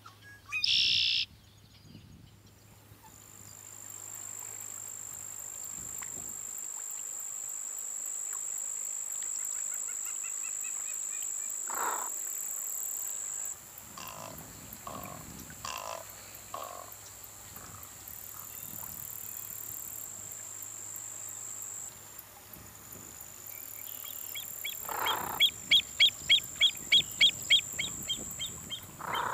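Coastal marsh wildlife: a steady high-pitched buzz, scattered short calls, and near the end a loud run of about nine sharp, evenly spaced calls, about three a second.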